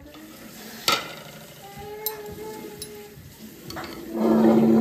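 Kitchenware clinks, most likely the glass lid of the curry pan being handled: one sharp clink about a second in, then a few lighter ones. Near the end a young child starts crying loudly.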